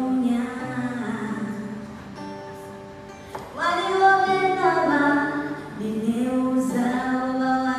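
Background music: a song with a female vocal singing long held notes, softer for a moment before a louder phrase comes in about halfway through.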